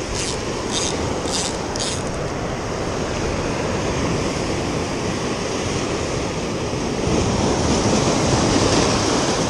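Surf breaking and washing over a rocky shoreline: a steady rushing that swells a little near the end.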